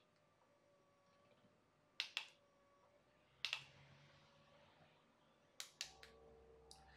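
Soft button clicks on the handheld remote of a HoMedics ShiatsuMax massage cushion, about four presses each with a quick double click. Otherwise near silence, with a faint low hum coming in about halfway through.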